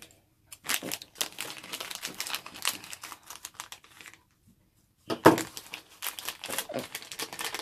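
Shiny plastic Trolls blind bag crinkling as it is handled, cut with scissors and pulled open by hand. There is a short pause just past halfway, followed by a louder rustle and more crinkling.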